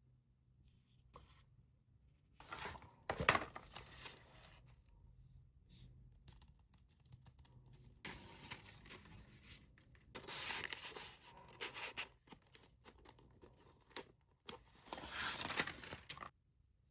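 Packaging being opened and handled: irregular rustling, tearing and crinkling, with a few sharp clicks. It stops abruptly near the end.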